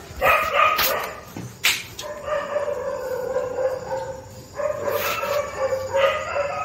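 A dog howling and whining in long, drawn-out notes, with a few short, sharp sounds in between.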